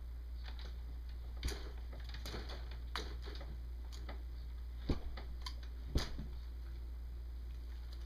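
A cat batting and grabbing at a dangling toy bird made of straw and feathers: scattered light taps and rustles, with the two sharpest knocks about five and six seconds in.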